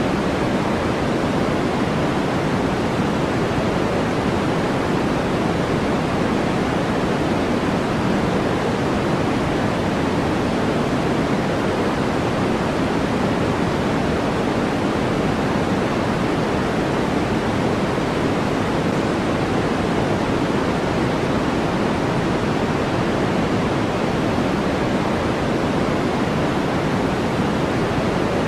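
Generated white-noise track: a steady, unchanging hiss, fuller in the low and middle range than in the highs.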